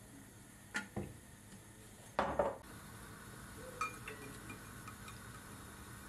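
Cubes of bread dropped by hand into a stone-coated frying pan with a little oil: two light knocks, a louder clatter about two seconds in, then a few soft taps.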